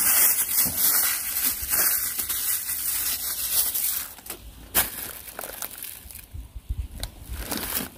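A clear plastic bag crinkling and rustling as it is squeezed and worked in the hands for about four seconds. After that it goes quieter, with a few scattered light knocks.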